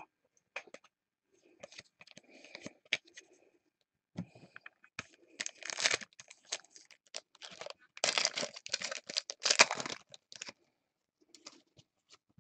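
Trading card pack wrappers being torn open and crinkled, with cards clicking as they are handled. The longer, louder rustles come near the middle and again about two-thirds through.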